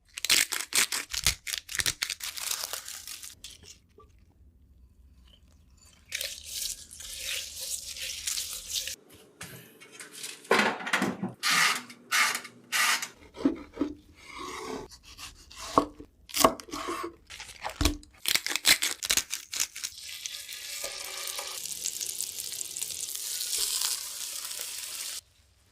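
Edited run of kitchen and food sounds: utensils clicking and clattering against dishes in quick, irregular strokes, with a steady hiss for the last five seconds or so that cuts off suddenly.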